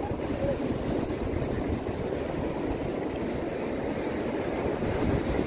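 Wind rumbling on the microphone over the steady wash of ocean surf.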